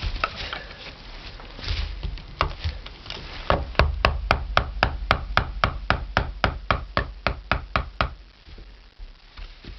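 Scraping and scattered knocks as a VW Beetle running board's metal lip is worked away from its rubber cover, then a rapid even run of sharp knocks, about four a second, lasting some four seconds before stopping.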